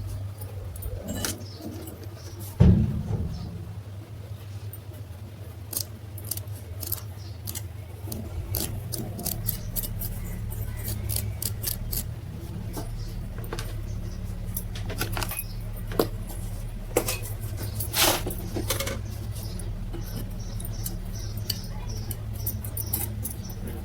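Metal parts and tools clinking and tapping as they are handled, with one heavier knock about three seconds in. A steady low hum runs underneath and grows a little louder about eight seconds in.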